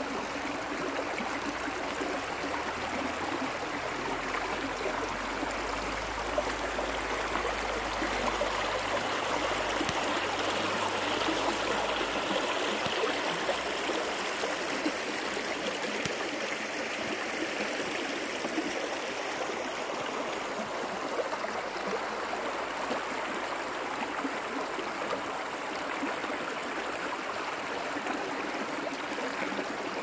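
Shallow mountain stream running over stones, a steady rush of water that swells slightly midway.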